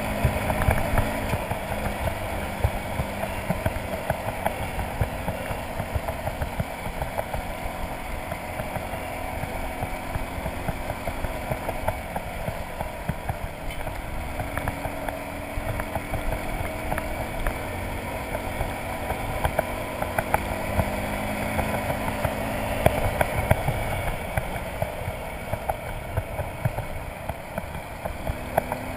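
Motorcycle engine running at steady, fairly low revs while riding, its note drifting up and down a little. Under it is a rough, constant rumble and crackle from the tyres on the gravel road and from wind on the microphone.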